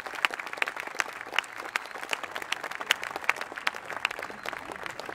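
Audience applauding: many separate hand claps at an irregular pace.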